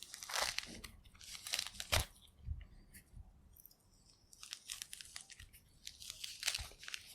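Orange peel being torn away from the fruit by hand: irregular wet rips and crackles, with a sharp snap about two seconds in and a brief lull a little after three seconds.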